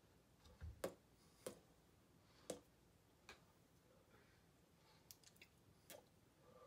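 Near-silent room with about seven faint, sharp clicks and taps at irregular intervals, the loudest in the first few seconds, from a person's movements while signing.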